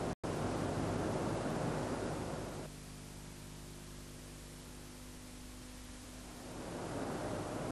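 Steady hiss of an old videotape sound track, with a split-second dropout just after the start. In the middle it drops to a quieter low steady hum, and the hiss comes back near the end.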